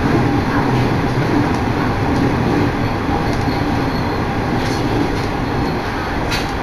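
Running noise inside a moving train carriage: a steady rumble of wheels on rails, with a couple of faint clicks in the second half.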